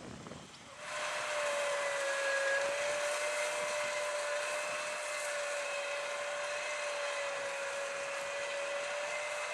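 Case IH Puma 200 CVX tractor running under load while ploughing, a steady mechanical noise with a high, even whine over it, suddenly louder from about a second in.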